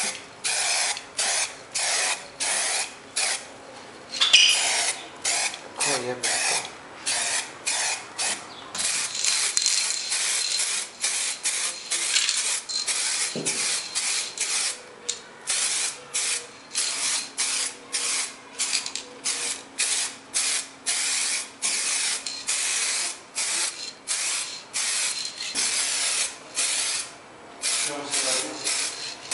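Aerosol spray-paint can hissing in short repeated bursts, about two a second, with a stretch of nearly continuous spraying in the middle. A brief louder noise comes about four seconds in.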